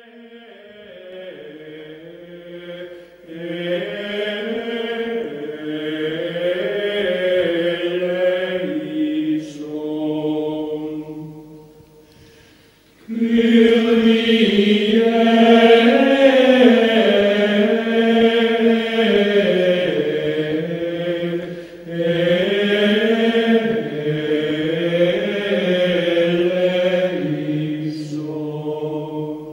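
Slow choral chant in low voices, sung in long held phrases. It sinks away about twelve seconds in and comes back loudly a second later, with another short break near twenty-two seconds.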